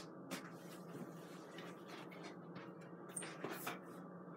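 Faint room tone with a low steady hum, broken by a few light rustles and taps.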